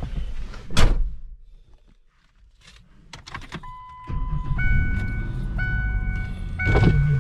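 Inside a car: a door shuts with a thud about a second in, then keys click at the ignition. After a single held beep the engine starts and runs at a steady idle, while a dashboard warning chime repeats about once a second.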